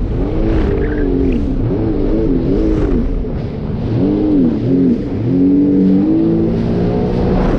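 Jet ski engine running hard under way, its pitch rising and falling over and over as the throttle and the hull's contact with the waves change, then holding higher and steadier a little past halfway. Wind rumble on the microphone underneath.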